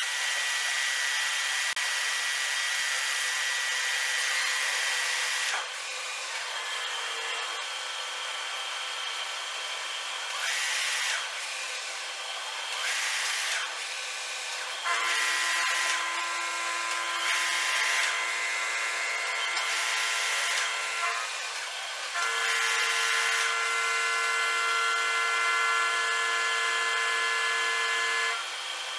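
Metal lathe running while a threading insert cuts an external thread on a metal shaft. The spindle and gears give a steady whine over the cutting hiss, in several louder stretches of a few seconds each with quieter spells between. It drops quieter near the end.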